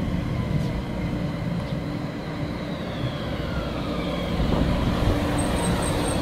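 Kumamoto City 9700-type low-floor tram pulling in close alongside the platform, a steady low rumble over the rails, with its motor whine falling in pitch as it slows to a stop.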